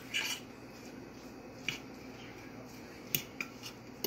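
Frozen blueberries being stirred with a spoon in a glass baking dish: a short rustle of berries near the start, then a few sharp, separate clinks of the spoon against the glass.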